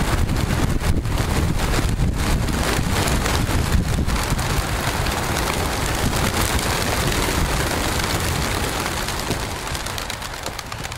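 A large flock of racing pigeons flapping their wings as they are released from a transport truck: a dense, continuous flapping that thins out near the end as fewer birds remain.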